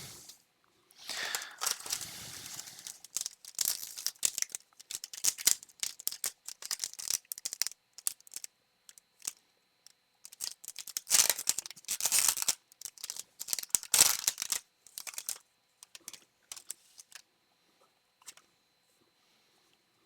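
Foil wrapper of a trading-card booster pack being torn open and crinkled, then rustling and clicking as the cards are handled. It dies away about 18 seconds in.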